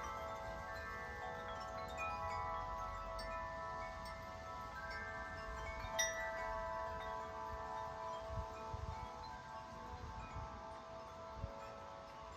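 A large 50-inch Corinthian Bells tubular wind chime rings in strong gusting wind, its tubes sounding together in many overlapping, sustained tones. One sharper strike comes about six seconds in. Low wind rumble buffets the microphone in gusts.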